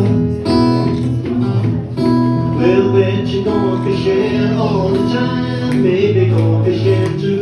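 Acoustic blues played live on acoustic guitar, a steady plucked accompaniment, with a wavering melody line over it from about two and a half seconds in.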